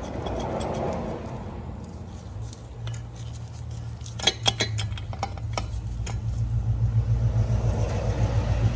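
Sharp metallic clinks and taps of tools and exhaust hardware being handled, bunched together about four to six seconds in, over a low rumble that swells and grows louder through the second half.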